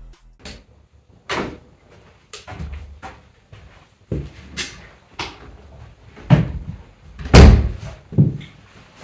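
A run of irregular knocks and clunks of things being handled, opened and shut, about a dozen in all, with the loudest knock about seven and a half seconds in.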